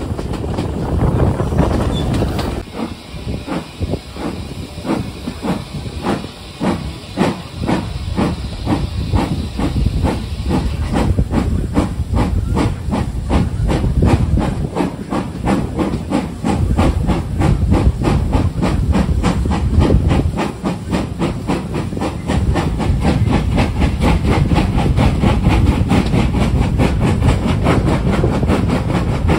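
Steam locomotive hauling the train, heard from a carriage window: a steady rhythm of exhaust beats over the rumble of the train, the beats coming faster as it gathers speed. Wind noise on the microphone at first.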